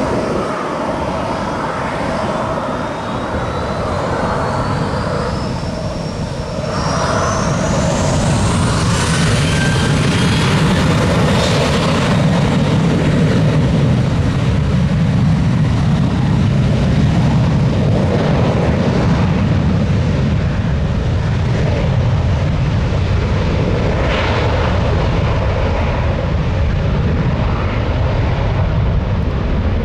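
Jet airliner's engines spooling up for takeoff: a thin whine climbing steadily in pitch over about the first ten seconds over a heavy rumble, which grows louder about seven seconds in and holds steady at takeoff thrust.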